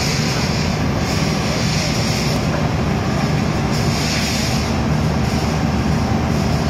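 Rotary drilling rig running under load as its rotary head turns a steel casing into the ground: a steady, loud diesel drone with a hiss that swells and fades every second or so.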